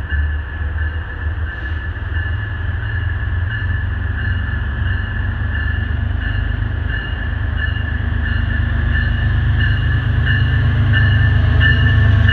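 MBTA HSP-46 diesel-electric locomotive, a Cummins QSK95 engine, approaching at the head of a commuter train: a deep rumble that grows steadily louder as it nears and draws alongside. Over it, a high tone pulses about three times every two seconds.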